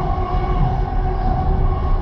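Steady low rumble of a moving train heard from inside the carriage, with no rail clacks, and a sustained trumpet-like droning tone held over it.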